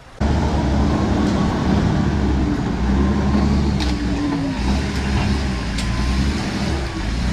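Off-road 4x4's engine running at low revs, its pitch rising and falling a little, with a couple of brief knocks.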